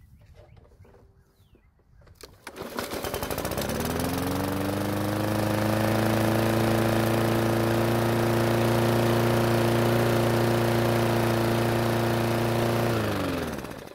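Yard Machines push mower's small single-cylinder engine pull-started, catching on the one pull and rising to a steady run that sounds pretty good. Near the end it is shut off and winds down.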